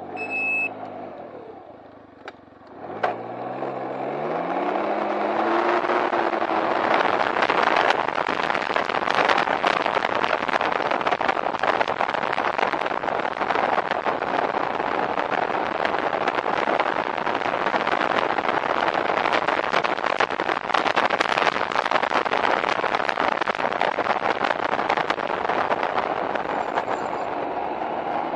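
Can-Am Ryker's engine pulling away about three seconds in, its pitch rising for a few seconds. It then runs at road speed with a steady rush of wind over the onboard microphone that covers most of the engine sound. There is a short electronic beep right at the start.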